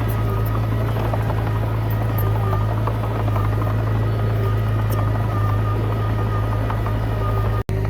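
Komatsu D20P bulldozer's diesel engine running steadily with a strong low drone and a faint high whine. The sound cuts out for an instant near the end.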